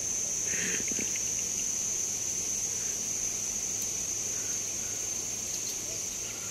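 Insects droning steadily in one high-pitched tone, with a faint voice and a few soft ticks about half a second to a second in.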